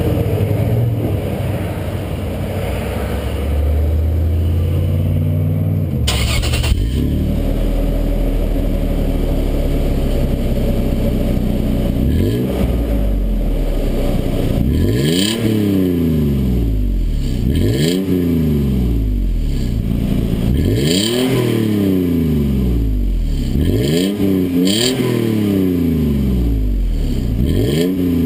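Pickup truck engine heard through a newly installed MBRP aftermarket exhaust: idling at first, then revved in quick throttle blips about every three seconds. Each rev climbs sharply and falls slowly back to idle.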